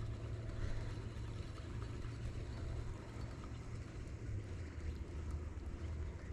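A steady low droning hum that steps slightly lower in pitch about four seconds in.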